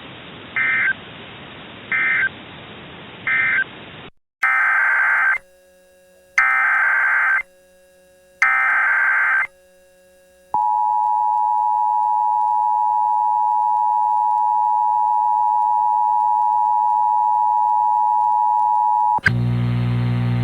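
Emergency Alert System tones. The radio warning ends with three short warbling SAME end-of-message data bursts over hiss. A new alert then starts with three one-second warbling SAME header data bursts, followed by the two-tone EAS attention signal held steady for about eight seconds. Near the end it cuts to a loud buzz.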